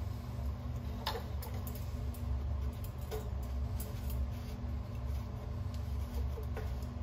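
Steady low hum with a few light, scattered clicks and taps.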